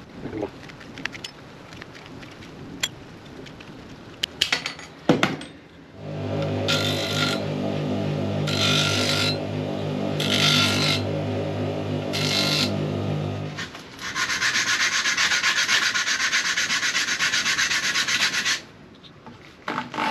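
Tin snips clicking through thin aluminium sheet for the first few seconds. Then a bench grinder's motor runs with a steady hum while the aluminium plate is pressed against the wheel in four short rasping bursts, followed by several seconds of continuous rasping, smoothing the cut edges.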